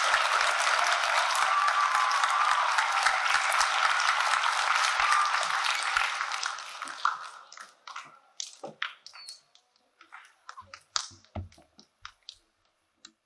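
An audience applauding a speaker's introduction, steady for about seven seconds and then dying away, followed by a few scattered clicks and knocks.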